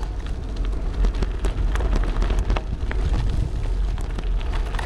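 Bicycle tyres rolling over loose gravel, a steady crackle of small clicks and pops, with wind rumbling on the microphone.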